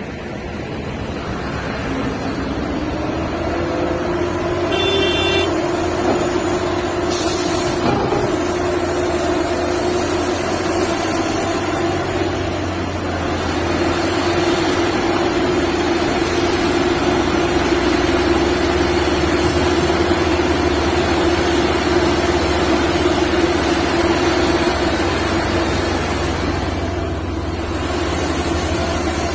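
Liebherr 954 hydraulic excavator's diesel engine running hard. It is a steady drone that rises in pitch and loudness over the first few seconds and then holds.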